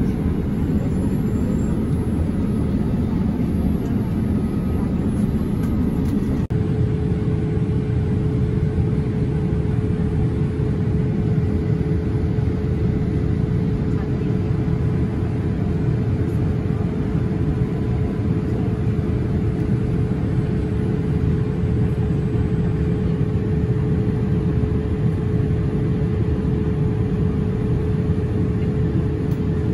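Airliner cabin noise in flight: a steady, loud rush of engine and airflow noise, with a steady hum tone coming in about six seconds in.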